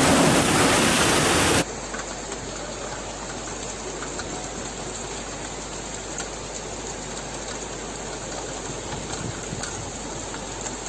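Loud, even rush of floodwater that cuts off abruptly about a second and a half in, giving way to a quieter, steady hiss of heavy rain with faint scattered patters.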